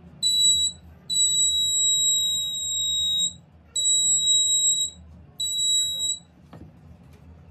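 Homemade IR proximity sensor circuit's alarm sounding a high-pitched electronic beep each time an object comes close to the sensor. It gives four beeps: a short one, a long one of about two seconds, one of about a second, and a shorter one.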